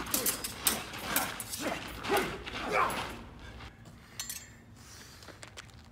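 Thin steel smallsword blades clicking and clashing in quick exchanges, with the fencers' short grunts of effort, for about three seconds; after that it quiets to a few isolated clicks.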